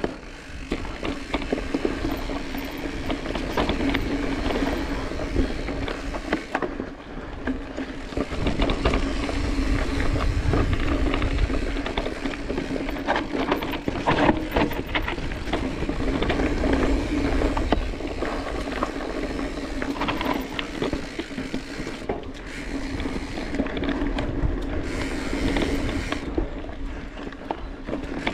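Specialized Epic cross-country mountain bike being ridden on a trail: steady tyre rolling noise and wind buffeting, with continual rattles and clicks from the bike over rough ground.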